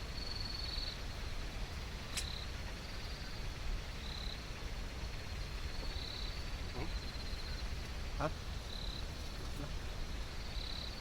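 Insects chirping in short trilled bursts every second or two, at two slightly different high pitches, over a steady low rumble.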